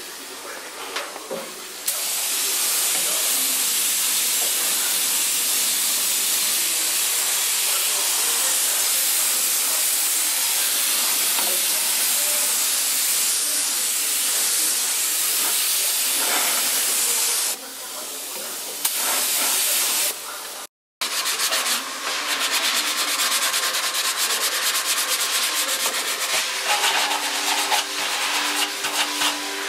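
Air-powered spray gun hissing steadily as it sprays primer onto the car's trunk panels, with a brief break. After a sudden cut about two-thirds through, a sanding pad rubs the primed sheet-metal trunk floor in quick back-and-forth strokes.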